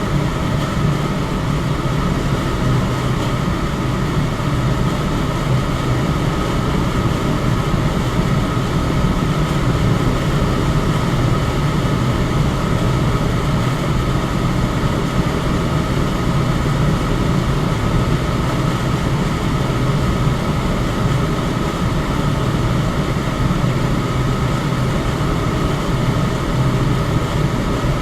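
Electric fan running steadily: a constant rush of air over a low hum, with a faint steady tone above it and no change in level.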